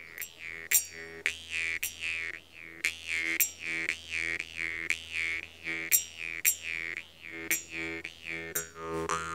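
Jaw harp music: a steady twanging drone whose upper tone sweeps in a wah-like pattern, repeating just under twice a second, with sharp clicks on many of the beats.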